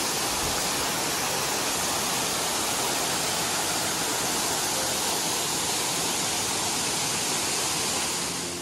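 Steady rush of water from Crabtree Falls and its creek tumbling over the rocks below.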